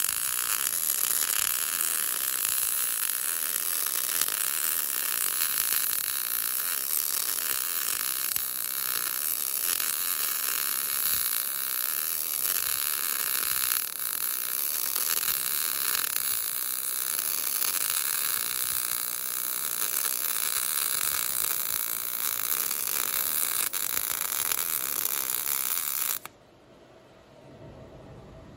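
MIG welding arc running steadily while laying a vertical-uphill fillet weld on a steel T-joint, then cutting off suddenly about 26 seconds in.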